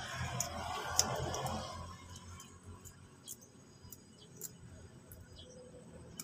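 Hands handling a potted plant: rustling and scratching for about the first two seconds, then scattered light clicks.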